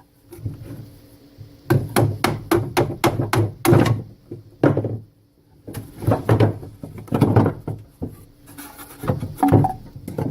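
Wooden beehive frames knocking against a wooden jig and each other as they are lifted out: a quick run of sharp wooden knocks about two seconds in, then scattered thunks.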